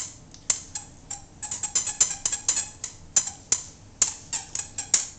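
Dog chewing a squeaky toy, squeezing out a rapid, uneven run of short, clipped squeaks that sound like Morse code.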